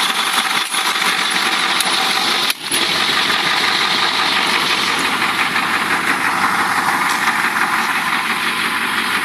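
Caterpillar 3208 V8 diesel engine of a rear-engine school bus idling steadily.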